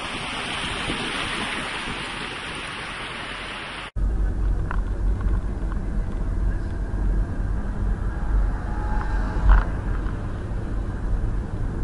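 Driving noise from inside a moving car: a steady hiss at first, cut off abruptly about four seconds in and replaced by a louder low road rumble with a couple of faint clicks.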